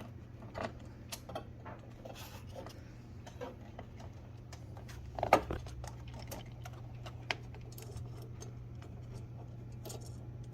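Scattered small metallic clicks and taps of a screw being threaded by hand with a screwdriver into a metal soundbar mounting bracket, with one louder knock about five seconds in, over a steady low hum.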